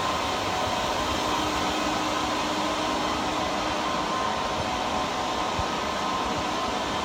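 Steady whir of server-room cooling fans and air-conditioning, a constant noisy hum with a faint steady tone.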